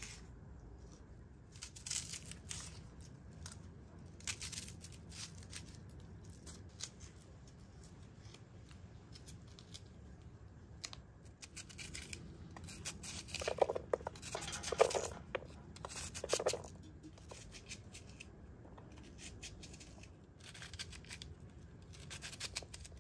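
A knife slicing and dicing a raw onion held in the hand, a string of short crisp cuts, with the chopped pieces dropping into an aluminium pot. A cluster of louder cuts comes just past the middle.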